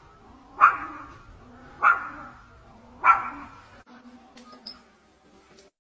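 A dog barking: three sharp single barks about a second and a quarter apart, followed by a few faint clicks.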